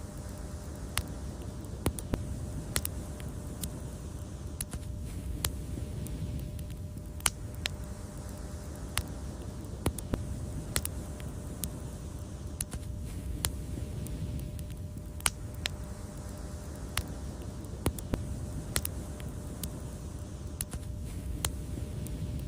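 Fireplace fire crackling, with sharp, irregular pops over a steady low rumble of the flames.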